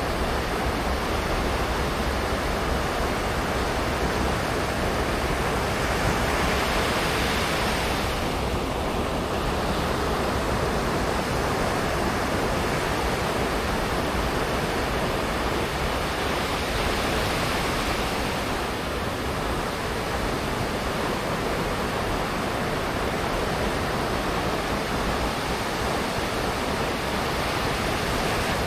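Ocean surf washing onto a sandy beach: a steady rush of waves that swells twice, about ten seconds apart.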